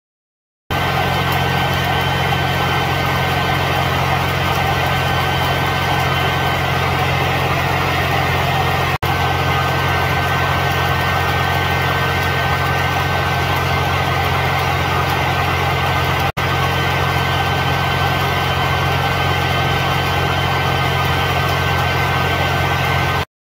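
Stick welding arc crackling steadily over the low drone of an engine-driven welder. It starts about a second in, drops out for an instant twice and stops just before the end.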